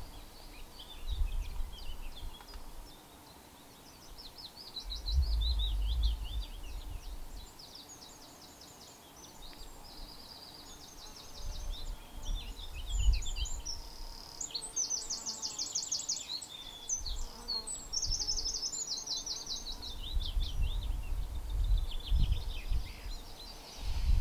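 Songbirds singing: varied high phrases and several fast, rattling trills of rapidly repeated notes. Bursts of low rumble come and go underneath.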